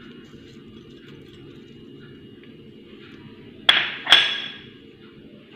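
Two sharp clinks of kitchenware, about half a second apart a little past the middle, each ringing briefly, over a steady low hum.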